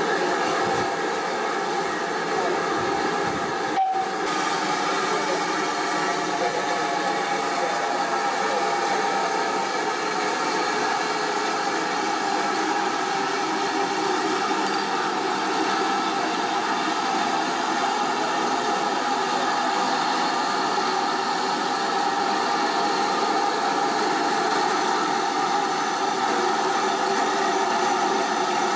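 Steam hissing steadily from a standing GWR Prairie tank locomotive, No. 4141, with a momentary break about four seconds in.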